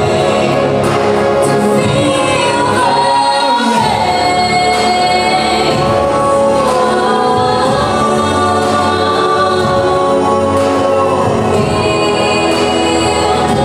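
Orchestral cinematic pop music with long held sung notes and choir-like voices over a full, sustained backing, the melody stepping down about four seconds in.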